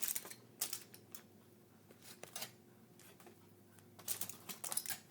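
Faint handling noises of a mobile phone being worked by hand: a few short clicks and scrapes, in small clusters about two seconds in and again near the end.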